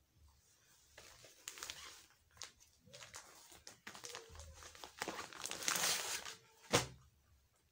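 Plastic packaging of an unstitched lawn suit crinkling and rustling as it is opened and the fabric pulled out, in several bouts, the longest and loudest about five to six and a half seconds in. A sharp tap near the end.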